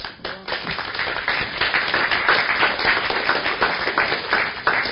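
Audience applauding: many hands clapping at once, building up over the first second and staying dense.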